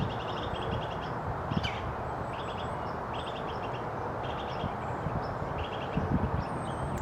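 Wind noise over repeated short stuttering bird calls, roughly one group a second, with a few very high, thin whistles of the kind cedar waxwings give.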